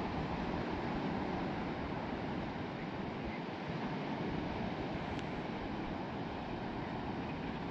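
Sea waves washing onto the beach, a steady rushing noise, with gusty wind rumbling on the microphone.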